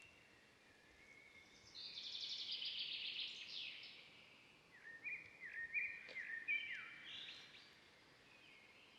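Forest birdsong over a faint background hiss. A rapid trilling song runs for about two seconds, then comes a series of about five short, repeated whistled notes that each slide up and hold, then a brief trill near the end.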